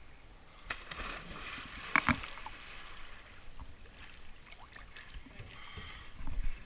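A scuba diver in full gear jumping off a dock into a river: a splash and water churning, with two sharp knocks about two seconds in, then sloshing water and a low rumble near the end.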